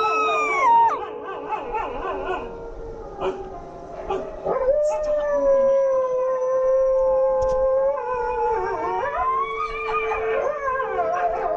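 Dogs howling: long, held howls from more than one voice overlapping, sliding down and up in pitch, one holding a steady note for about three seconds mid-way.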